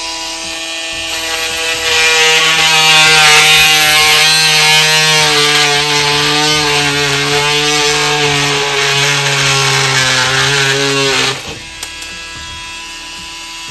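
Ryobi 18-volt oscillating multi-tool running, its blade cutting through a drywall screw in drywall with a buzzing whine and metal grinding. It stops suddenly about eleven seconds in.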